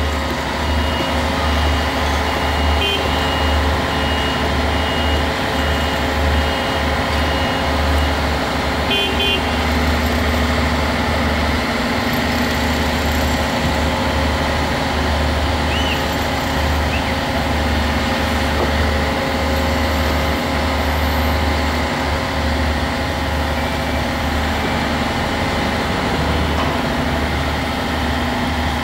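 Heavy diesel engine of a crawler crane running steadily under load with a deep drone. For the first eight seconds or so a high warning beeper sounds in rapid pulses, then stops.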